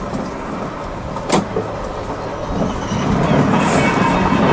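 Volk's Electric Railway car running along the track, its wheels rolling on the rails, with a sharp click about a second in. The running noise grows louder from about three seconds in.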